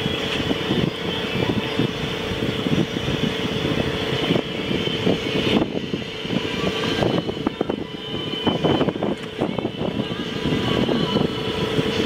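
Catamaran under way at sea: a steady mechanical hum under rough, fluttering wind and water noise.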